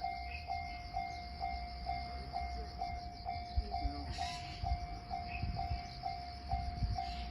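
Japanese level-crossing warning bell ringing steadily, about two strokes a second, over the low rumble of a container freight train moving slowly across the crossing, with a few low wheel clunks.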